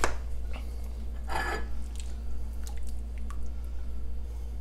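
A ladle moving through a pot of shrimp broth, with a brief liquid slosh about a second and a half in and a few light clicks, over a steady low hum.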